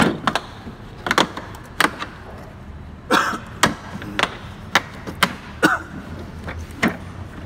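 A hard-plastic tool case and loose metal tools knocking and clattering in a toolbox drawer as the case is lifted and shifted. It is a string of sharp, irregular knocks, about a dozen in all.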